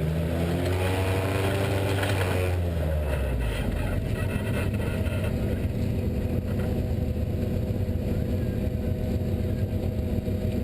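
Off-road race truck engine running. Its pitch falls over the first three seconds, then it runs steadily at a lower speed.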